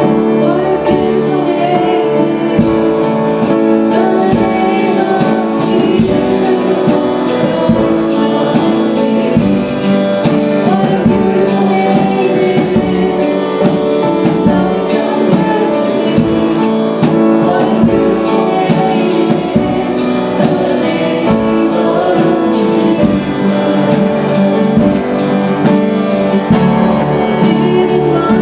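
Live church worship band playing a worship song with a steady beat, in an instrumental passage between sung lines.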